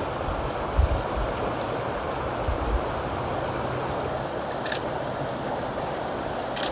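Creek water rushing steadily. There are a few low thumps in the first three seconds and two sharp clicks later on.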